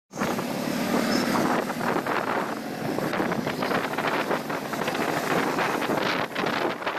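Heavy monsoon rain with wind buffeting the microphone: a loud, steady rushing noise broken by many short gusts.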